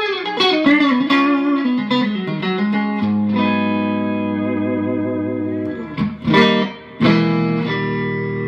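Electric guitar on a freshly fitted set of strings: a quick run of picked single notes with string bends, then ringing chords, two sharp strums about six and seven seconds in, and a last chord left to sustain.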